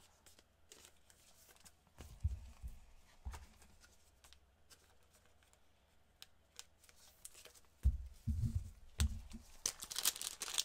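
Trading cards handled with gloved hands: faint clicks and rustles of card stock with a few soft thumps on the table. In the last second a foil trading-card pack is torn open, its wrapper crackling and crinkling.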